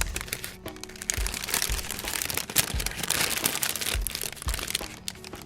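Music with a low thumping beat, about two beats a second, under a dense crackling, crunching noise.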